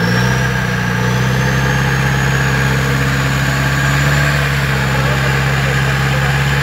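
Off-road 4x4's engine running steadily under load during a pulling recovery through mud; its pitch steps up right at the start and then holds, with a faint high whine slowly climbing in pitch above it.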